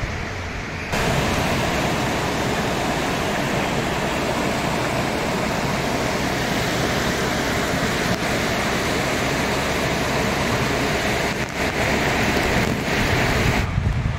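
Fast-flowing stream water rushing over rocks: a steady, full rushing that comes in about a second in and drops away near the end.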